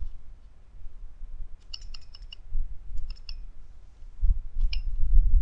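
Sharp computer keyboard key clicks, a quick cluster of several about two seconds in, a couple more around three seconds and one near the end. Under the last second or so runs a low rumble.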